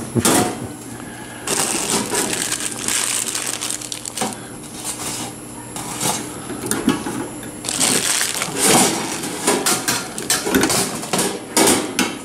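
Parts of a stainless steel electric deep fryer being handled and fitted together: irregular metal clinks and knocks, with stretches of rubbing noise between them.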